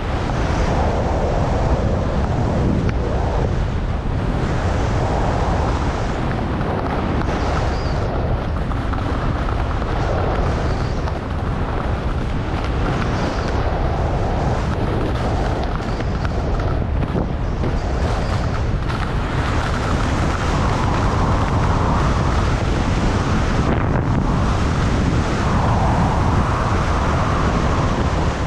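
Wind buffeting the action camera's microphone at skiing speed, mixed with the scraping hiss of skis carving through chopped-up snow, swelling and easing every couple of seconds.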